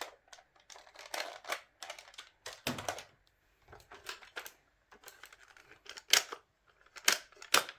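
Plastic toy dart blasters being handled, giving a run of irregular clicks and knocks with a few sharper snaps near the end.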